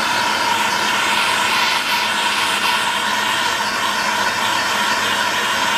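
MAPP gas hand torch burning steadily with a constant rushing noise, its flame held on a crucible of molten sterling silver to keep the metal molten and heat the pouring tip before the pour.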